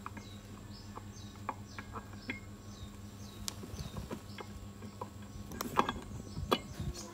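Scattered light metal clicks and clinks of gearbox gears and a shaft being seated by hand in an aluminium motorcycle crankcase (Modenas Kriss 110), a little louder near the end. A faint high chirp repeats about twice a second in the background.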